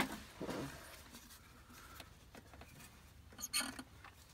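Faint, scattered metal clicks of a wrench on a starter motor's mounting bolt, with a short cluster of clicks about three and a half seconds in.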